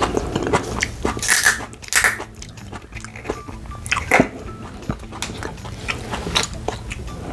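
A green glass beer bottle being handled close to the microphone while its cap is worked open. There are two short sharp noises about a second and two seconds in, then a few scattered clicks.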